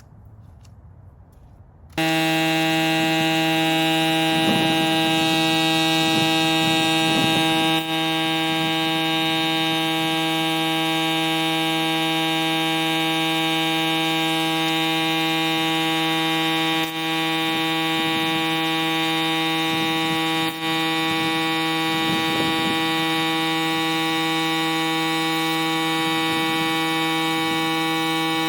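Electric tire-inflator air compressor starts about two seconds in and runs with a steady, loud buzzing drone, pumping a tire that reads 27 PSI up toward 32 PSI. The drone dips briefly three times.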